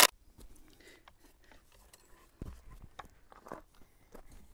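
Footsteps crunching on wood-chip mulch, with scattered light clicks and one low thump about two and a half seconds in. A power drill's burst cuts off at the very start.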